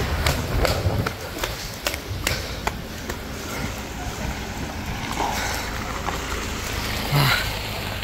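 Running footsteps, about two and a half strides a second, over a steady low rumble; the footfalls fade out about three seconds in, and a short voice sound comes near the end.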